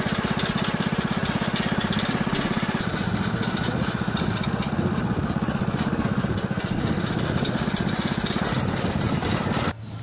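Small motorbike engine running under way, a fast even putter heard from the rider's seat with a steady rushing hiss over it. It cuts off suddenly near the end.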